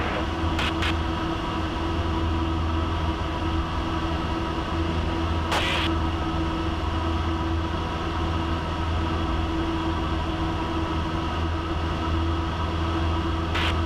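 Engine and propeller of a small single-engine piston airplane droning steadily as heard inside the cockpit, with three brief clicks about half a second, five and a half seconds and near fourteen seconds in.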